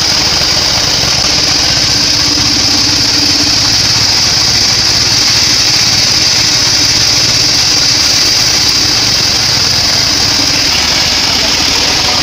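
Bandsaw sawmill running steadily: a loud, constant high-pitched hiss over a low machine drone.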